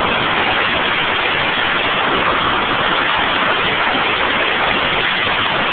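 Compressed air blowing from an air hose: a loud, steady hiss that does not change.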